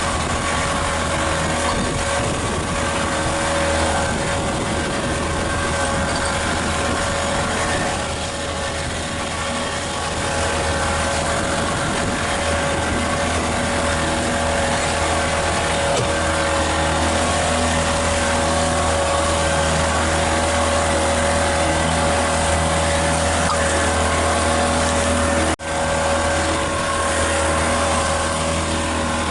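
Motorboat engine running steadily under way, over a constant rush of wind and water. The sound cuts out for an instant near the end.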